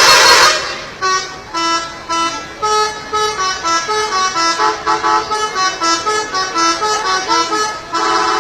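Bus 'telolet' multi-tone horn playing a tune. A loud held horn chord cuts off about half a second in, then the horns sound a quick run of short notes, and a held chord comes back near the end.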